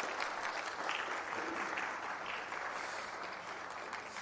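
Audience applauding, a steady patter of many hands clapping that eases slightly toward the end.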